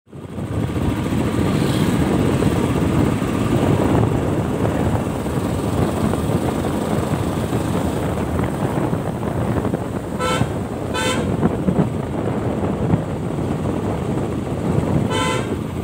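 Steady rumble of a motorcycle riding through traffic, with wind noise on the helmet-mounted microphone. A vehicle horn toots twice in quick succession about ten seconds in and once more near the end.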